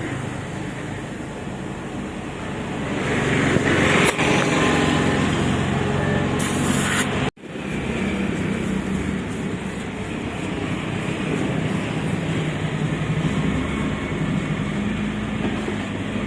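Steady mechanical running noise with a low hum, typical of workshop machinery or passing traffic. A short hiss of air comes about six and a half seconds in, and the sound breaks off sharply a moment later.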